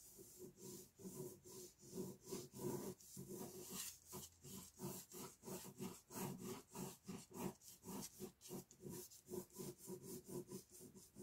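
Ballpoint pen scratching on paper in quick, repeated circular strokes, about three or four a second.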